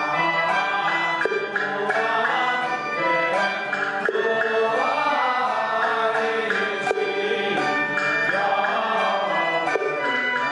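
Taoist liturgical chant sung by a group of priests over accompanying instruments, with percussion strikes every few seconds.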